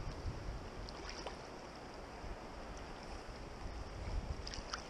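Steady rush of stream water with low wind rumble on the microphone. A few small splashes come about a second in and again near the end, from a hooked trout thrashing at the surface as it is drawn in by hand.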